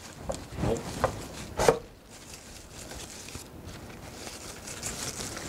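Hands working foliage plants in a wooden wall frame: a few light knocks in the first two seconds, the loudest just before two seconds in, then soft steady rustling of leaves.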